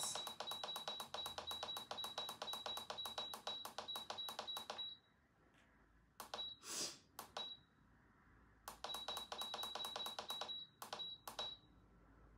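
Control panel of an HTVRONT automatic tumbler heat press beeping with each press of its plus button as the timer setting is stepped up: quick runs of short, high beeps about six a second, stopping partway through for a couple of seconds with a few single beeps in between, then a second run.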